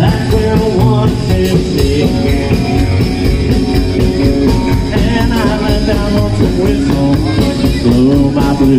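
Live rock band playing loudly through PA speakers: a drum kit keeping a steady beat under electric guitar and a singer.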